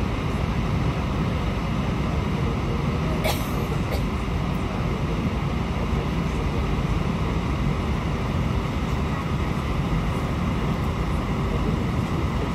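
Steady engine rumble and hum heard inside an airliner cabin while the plane taxis, with a brief click about three seconds in.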